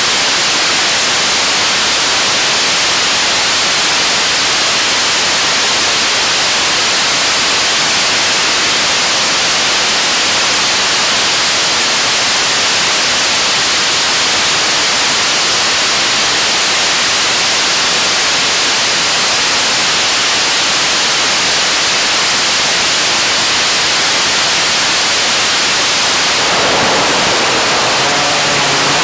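Korean launch vehicle 75-tonne kerosene–liquid-oxygen rocket engine firing on a test stand: a loud, steady rushing roar. Near the end the sound shifts and steady tones come in over the roar.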